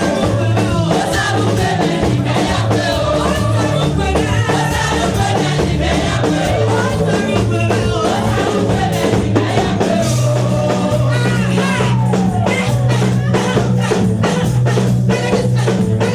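Choir singing with band accompaniment: a bass line and a steady drum beat.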